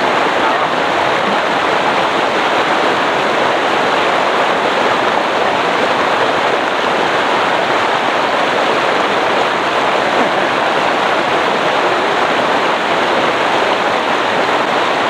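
Fast-flowing river water rushing, a loud steady noise that does not change.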